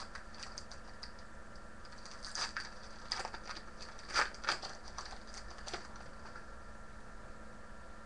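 Trading cards and paper pack wrappers being handled and sorted: a scatter of short crinkles and clicks, in clusters through the first six seconds and sparser after that, over a faint steady hum.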